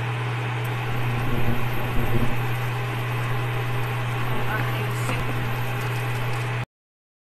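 Noodles being stirred and turned with a spatula in a nonstick frying pan, with the loudest knocks and scrapes between about one and two and a half seconds in. Under it runs a steady low hum. The sound cuts off suddenly near the end.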